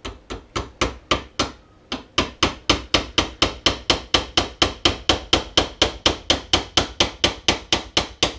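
Hammer tapping a steel roll pin through a punch into the roller pin of an Arctic Cat roller secondary clutch: a long run of quick, even metallic taps. They come about three a second at first, stop briefly just before two seconds in, then go on at about four a second.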